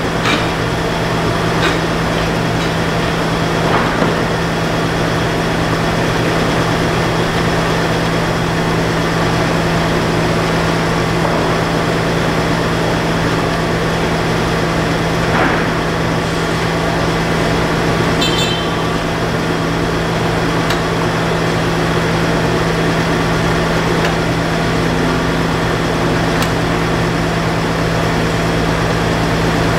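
Caterpillar D5K track-type dozer's diesel engine running steadily as the machine crawls onto a trailer, with a few short clanks and clicks.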